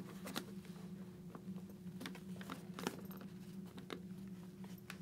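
Faint handling sounds of a fabric-covered helmet cheek pad being pressed into a motorcycle helmet shell: scattered light clicks, taps and rubbing. A low steady hum runs underneath.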